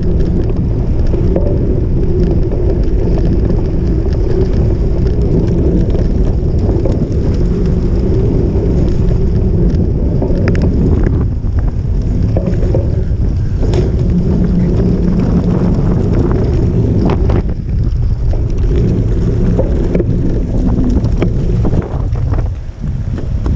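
Wind buffeting the microphone over the steady rumble of a cyclocross bike riding over rough off-road ground. A few sharp knocks and rattles from the bike come through over the rumble.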